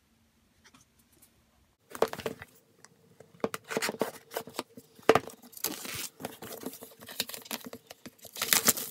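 Packaging being torn open and handled: after a couple of faint ticks, a busy run of tearing, crinkling and sharp clicking sounds starts about two seconds in and continues.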